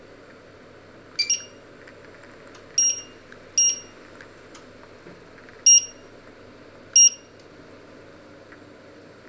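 Touch-control glass cooktop beeping as its control panel is pressed: six short, high electronic beeps at uneven intervals, the first two in quick succession.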